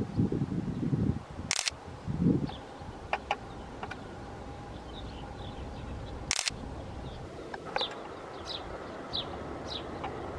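A small bird chirping over and over in short falling notes through the second half, with two sharp clicks about a second and a half in and past six seconds, and a few low rumbles in the first couple of seconds.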